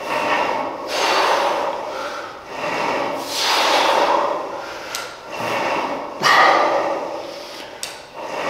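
A man breathing hard in and out, roughly once a second, during a set of cable flyes, with a couple of light clicks near the middle and the end.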